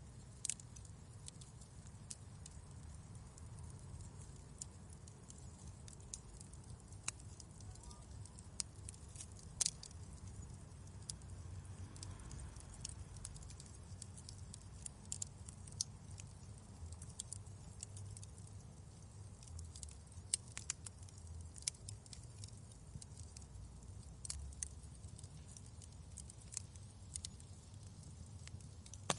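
Wood fire crackling in a fireplace. Irregular sharp pops and snaps, a few louder than the rest, sound over a faint steady low rumble of the flames.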